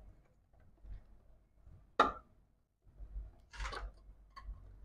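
Small handling noises of a wire being pushed into a consumer unit's neutral bar terminal: one sharp click about two seconds in, then a short scraping rustle and a few faint ticks, over a low hum.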